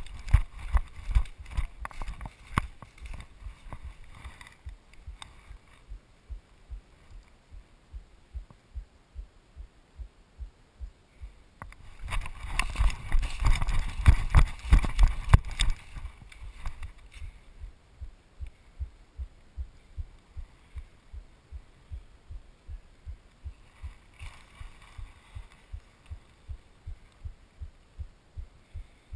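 Running footsteps on dry leaf litter at about two a second, each footfall jolting the head-mounted camera. A louder stretch of rustling and thumping comes about twelve seconds in and lasts a few seconds, with a weaker one later.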